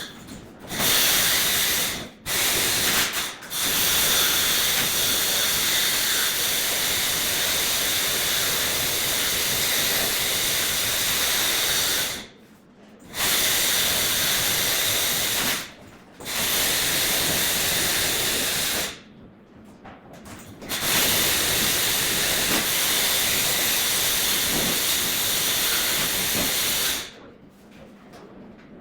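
Loud, steady hiss of pressurised gas escaping from an air-conditioning line or fitting. It cuts off and restarts several times, with short pauses.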